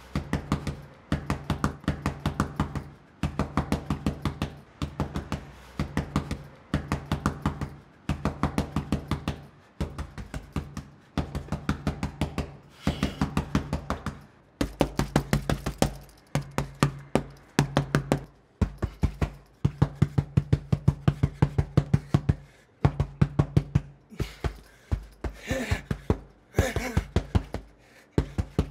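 Rhythmic score music: fast, evenly spaced percussive knocks in bursts of about a second over a held low bass note, which changes pitch several times in the second half.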